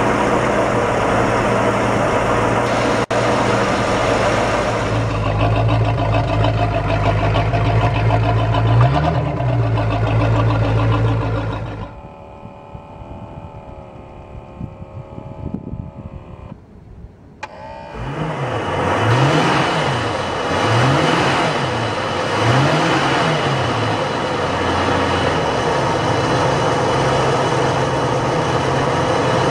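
A Volvo Penta V8 gasoline marine engine running out of the water on a flushing hose. It is blipped once about nine seconds in, runs more quietly for a few seconds midway, then takes four quick throttle blips in a row before settling back to a steady run.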